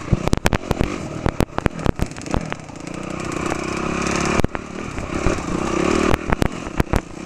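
Dirt bike engine revving under load, its pitch climbing twice with a short break about halfway through, over frequent sharp knocks and clatter from riding over rough ground.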